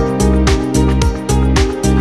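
Background music with a steady beat, about two beats a second, over a deep bass line.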